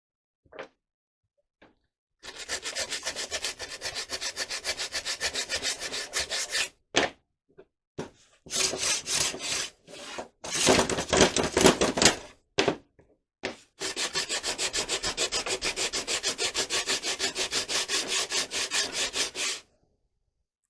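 Hand sanding with sandpaper in quick, even back-and-forth strokes, about four to five a second, in three long runs with short pauses between them.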